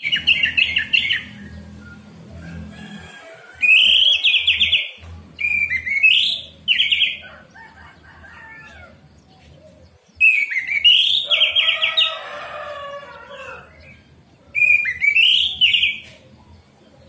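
Orange-headed thrush (anis merah) singing: loud, short phrases of rising whistled notes broken into fast trills, about six phrases with pauses of one to three seconds between them. A softer, lower warble joins in around the middle.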